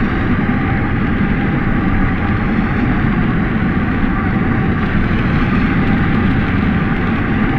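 Sound effect of the Star Wars UT-60D U-wing's engine as heard from inside the ship: a steady, loopable deep rumble and hiss with faint held tones in the middle.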